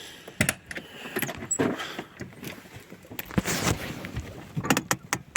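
Irregular metallic clicks and knocks from hands-on work on the car's handbrake and rear brake, with a longer scraping rustle about three and a half seconds in.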